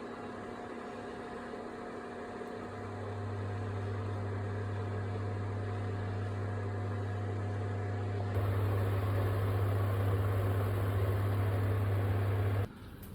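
An electrical appliance humming steadily. A deep hum joins in about two and a half seconds in, the sound gets louder about two-thirds of the way through, and it cuts off suddenly near the end.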